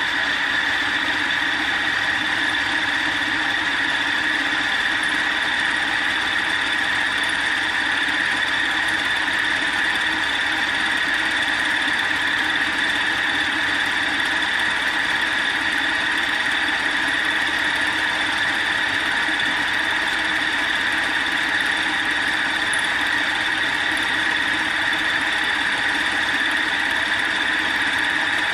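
Milling machine running with a fly cutter spinning in the spindle: a steady mechanical whine with a constant high squealing tone, unchanging throughout.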